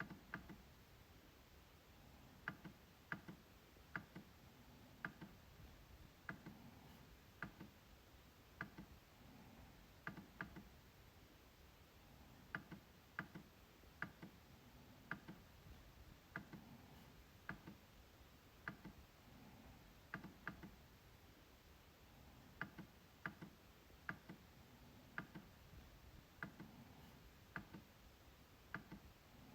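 MacBook trackpad clicking: sharp, short clicks at irregular intervals, often in quick pairs like double-clicks, over a quiet background.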